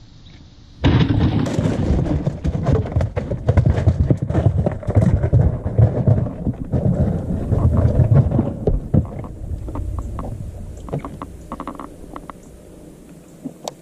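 A largemouth bass flopping on ice in a cooler: a loud, irregular rattle and knocking of ice and fish against the plastic. It starts suddenly about a second in and dies down over the last few seconds as the fish settles.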